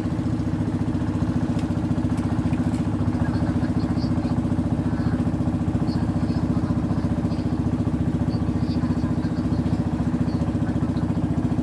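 Small boat engine running steadily as it moves a floating bamboo cottage along the river: an even drone with a fast, regular beat that holds the same pitch and level throughout.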